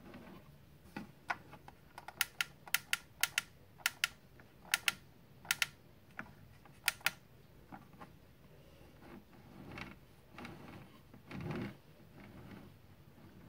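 A small push-button switch on a 1:24 scale Ford Explorer police model clicks about eight times, mostly in quick press-and-release pairs, as it switches the model's emergency lights. A few soft handling bumps follow near the end.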